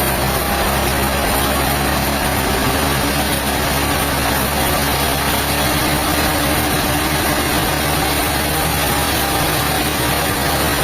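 Heavy engine running steadily with a low hum under a constant mechanical noise, holding the same level throughout.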